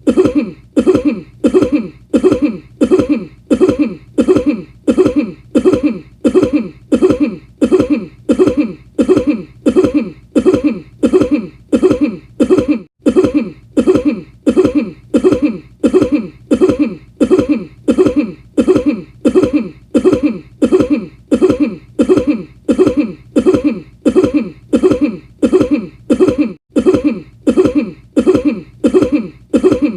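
A person's cough, one short cough repeated over and over at an even pace, about three coughs every two seconds.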